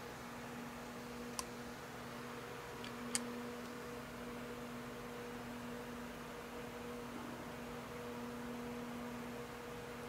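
Steady low electrical hum over background hiss, with two light metallic clicks about a second and a half and three seconds in as the metal parts of a South Bend lathe saddle are handled.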